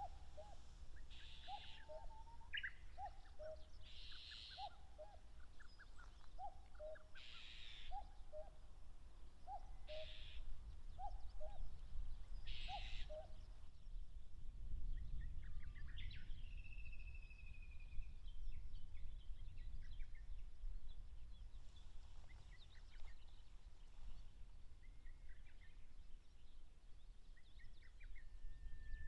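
Common cuckoo calling its two-note 'cuck-oo', falling in pitch, about once a second for a dozen or so calls, then falling silent about halfway through; male territorial song. Other small birds chirp and whistle higher up, over a low wind rumble.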